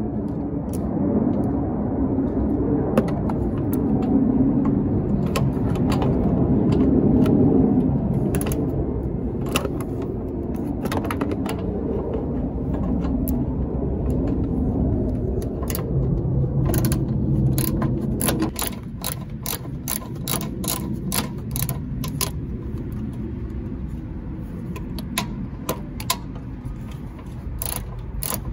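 Ratchet wrench clicking as a bolt is turned out. The clicks are scattered at first and come in quick runs over the last third, over a low rumble.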